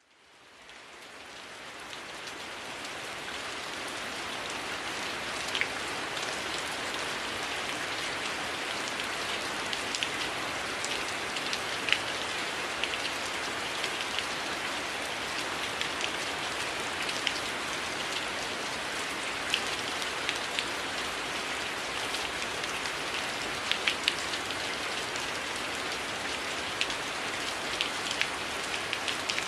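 Steady rain falling, an even hiss with scattered sharper drips and taps of drops hitting a surface. It fades in over the first few seconds.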